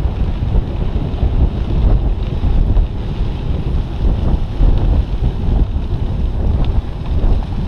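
Wind buffeting the microphone of a camera riding on a moving bicycle: a loud, uneven low rumble, mixed with the bicycle's tyres rolling on the path and a few small knocks over bumps.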